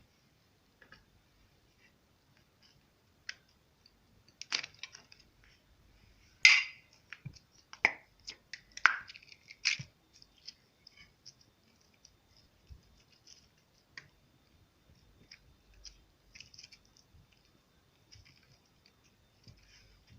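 Slime being squished and stretched by hand, giving irregular sticky clicks and pops from trapped air. They come thickest and loudest from about four to ten seconds in, then thin out to scattered small clicks.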